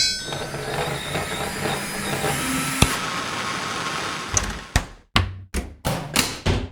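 A steady hissing, whirring noise with a single sharp click in the middle, then a rapid series of sharp knocks, about four a second.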